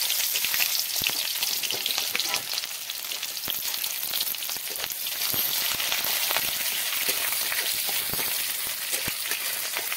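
Sliced onions frying in hot oil in an iron kadai: a steady, loud sizzle full of small crackles. A metal spatula stirs them in the pan near the end.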